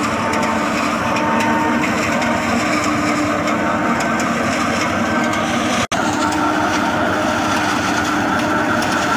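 Massey Ferguson 385 tractor's diesel engine driving a front-mounted forage harvester under load, the machine steadily cutting and chopping standing maize into silage and blowing it into a trailer. The sound cuts out for an instant about six seconds in.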